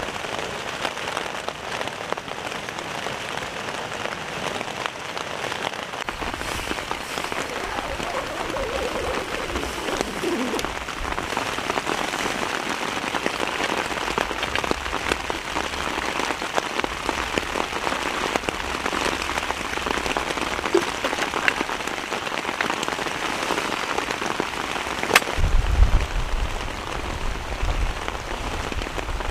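Heavy rain falling steadily, a dense patter of drops. A low rumble comes and goes beneath it, loudest near the end, with one sharp tap just before.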